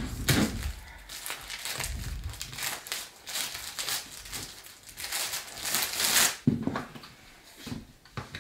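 Plastic protective wrapping being pulled off a pushchair frame and crumpled, crinkling in repeated bursts, followed by a few soft knocks near the end.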